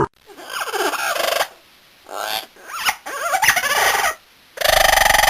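Domestic turkey gobbling: several wavering calls in separate bursts with short pauses, a louder one starting near the end.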